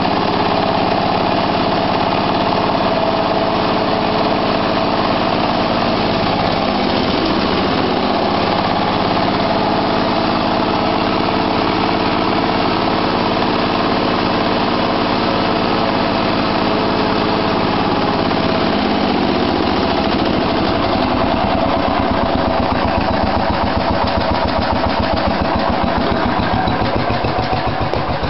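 The 1973 Case 444 garden tractor's engine running steadily after a cold start. Its speed shifts a couple of times, and in the last part it settles into a slower, more distinct firing beat.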